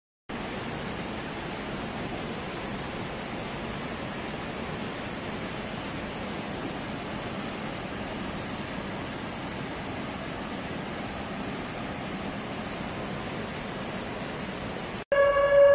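Muddy floodwater rushing past in a torrent: a steady, even rushing noise. Near the end it cuts off and a louder steady tone begins.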